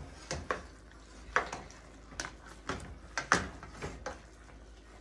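Tongs knocking and clinking against a stainless steel pot as browning chicken pieces are turned: about ten sharp, irregular knocks.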